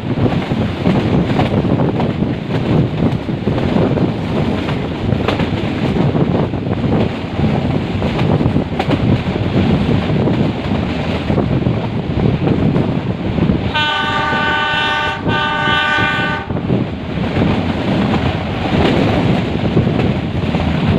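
Metre-gauge passenger train running, with steady rumble and rattle of the wheels on the rails. About two-thirds of the way through, the locomotive horn sounds in two blasts, one just after the other, about three seconds in all, as the train nears a station.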